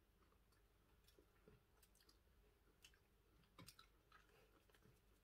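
Near silence with faint chewing: scattered soft crunchy clicks from a dry, gritty compressed food bar being chewed.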